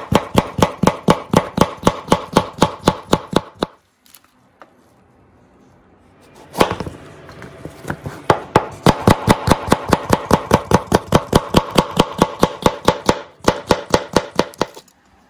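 Chef's knife rapidly slicing bell peppers into strips on a plastic cutting board, each cut ending in a sharp knock on the board, about five a second. The slicing stops about four seconds in, a single knock follows a couple of seconds later, then the fast slicing resumes, with a short break near the end.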